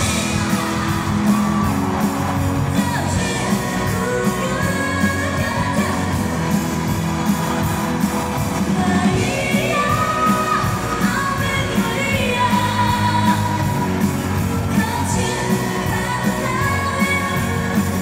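Live pop song played loud through a concert sound system: a woman singing lead over a band with a steady drum beat.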